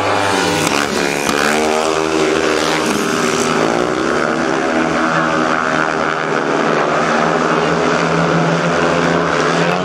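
Speedway motorcycles' 500cc single-cylinder methanol engines running loudly, their pitch rising and falling as the bikes rev.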